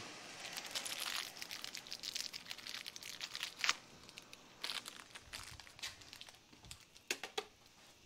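Faint crinkling and rustling with scattered sharp clicks, the sharpest about three and a half seconds in and a few more near the end: the keypad's mounting screws and bracket being handled.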